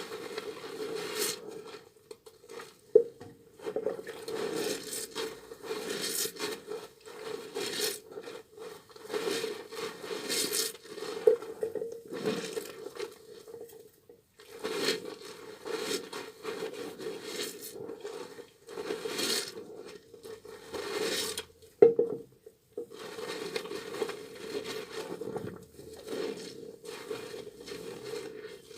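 Soaked, softened bar of tar soap being lathered by hand: wet rubbing and squishing in irregular strokes with short pauses, and three sharp clicks spread through it.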